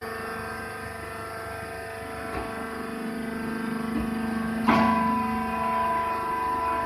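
Hydraulic baler press running: a steady motor-and-pump hum, with two light knocks and a louder clank about two-thirds through, after which a higher whine joins the hum.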